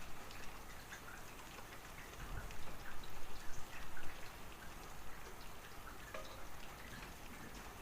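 Rain falling, with many separate drops ticking over a steady hiss; a little heavier for a couple of seconds near the middle.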